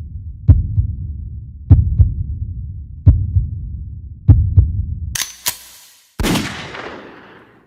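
Heartbeat sound effect: deep double thumps repeating about every 1.2 seconds over a low rumble. About five seconds in it gives way to a sharp noisy hit and then a louder noisy burst that fades away.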